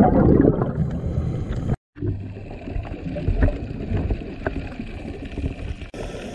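Muffled underwater ambience: a rumbling wash of water with gurgling and a few sharp clicks. It is louder for the first couple of seconds, drops out briefly, then returns quieter.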